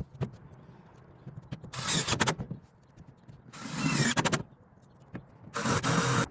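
A power drill driving self-tapping screws with rubber washers down into metal roofing, in three short runs of about a second each, with small clicks of handling between them.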